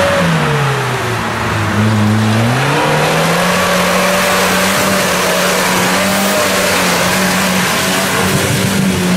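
Off-road 4x4's engine working hard as it pulls through deep mud. The revs drop about half a second in, climb again around two and a half seconds in, then hold high and steady.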